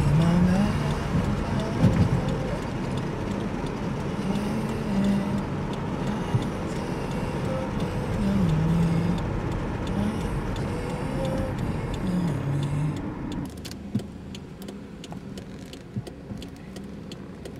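Car driving, heard from inside the cabin: a steady rush of engine and road noise. It turns quieter and thinner about two-thirds of the way through.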